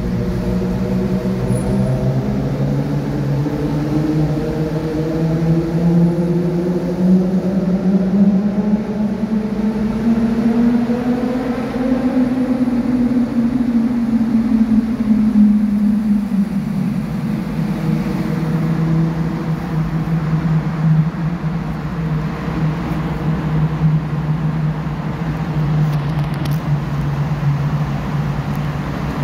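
Car engine and tyre noise heard from inside the cabin while driving. The engine's pitch climbs slowly as the car gathers speed, drops about sixteen seconds in, then holds steady over the road rumble.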